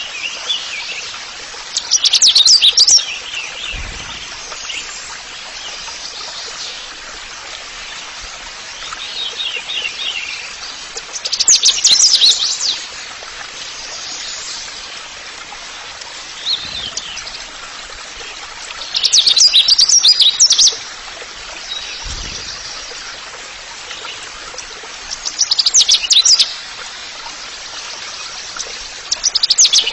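Songbird singing in five loud, high-pitched bursts of rapid song, each about a second or so long, repeated every six to nine seconds over a steady background hiss.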